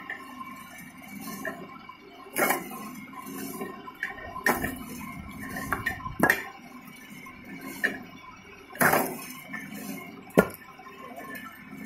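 Homemade belt-driven log splitter running with a steady hum, with about five sharp cracks and clatters as logs are split and the pieces fall.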